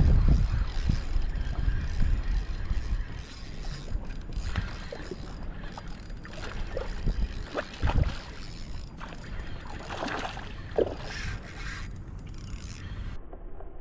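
Fishing reel's gears and clicks working as a hooked bluefish is fought and reeled in toward the kayak, over wind buffeting the microphone, strongest at the start.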